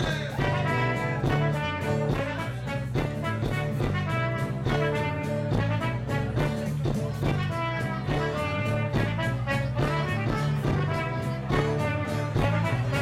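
Live band playing an instrumental passage of a mazurka, a flugelhorn leading the melody over bass and a steady beat, with no singing.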